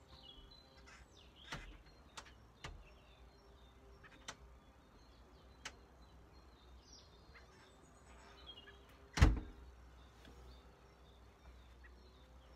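Small birds chirping faintly in the background, with several sharp clicks and knocks and one much louder thump about nine seconds in.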